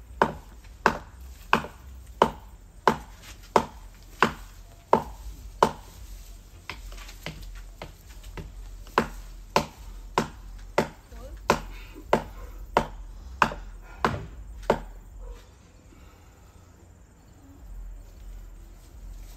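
Steady series of sharp blows struck into the partly cut tree trunk, about one and a half a second, weaker for a few seconds in the middle, stopping about fifteen seconds in.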